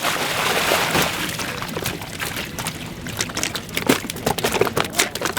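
Water pouring and sloshing as bass are handled in a weigh-in bag, fading after about two seconds, then scattered clicks and crinkles.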